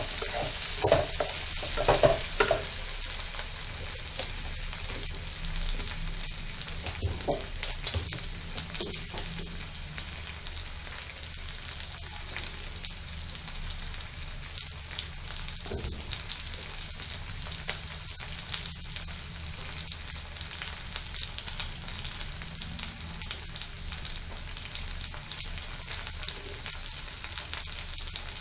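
Chopped onions, green chillies, ginger and garlic sizzling as they sauté in a metal kadai over a gas flame. A spatula scrapes and stirs against the pan for the first few seconds, with a few more scrapes later.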